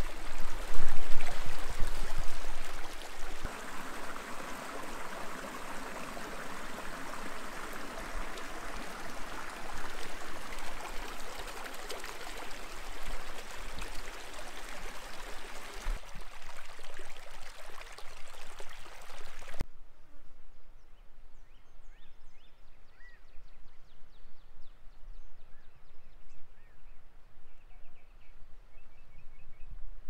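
Shallow stream of monsoon runoff flowing over rocks and gravel, a steady rushing that is loudest in the first few seconds. About twenty seconds in it cuts off abruptly to a much quieter open-air background with a few faint bird chirps.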